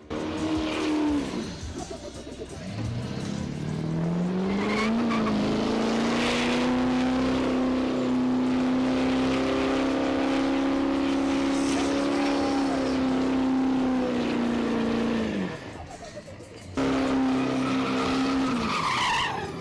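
Diesel Chevrolet Silverado pickup's engine revving up and held at high revs with its tyres spinning on the pavement in a burnout; the engine is running away. About fifteen seconds in, the revs fall away. After a short lull it is at high revs again, and the revs drop near the end.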